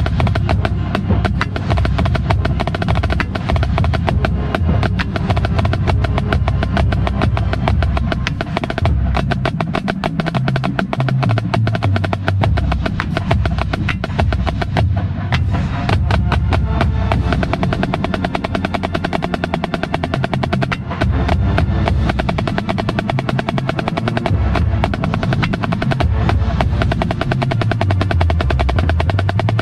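Marching snare drums played close up, with fast sticking patterns and rolls. The rest of the marching band plays underneath, with low notes moving in the bass.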